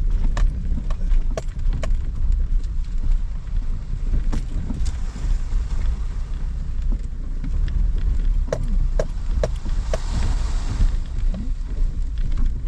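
Wind rumbling on the microphone, with scattered sharp knocks; a run of four ringing knocks about half a second apart comes two-thirds of the way through, followed by a short hiss.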